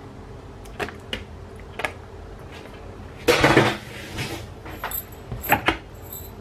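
Handling sounds at a plastic mini food chopper: scattered light clicks and knocks, a short rustling scrape a little past halfway, and a few sharper plastic knocks near the end as the chopper's lid is brought on.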